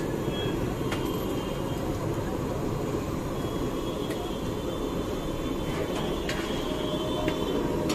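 Steady low rumble of street traffic and roadside bustle, with a few light clinks of steel plates and utensils.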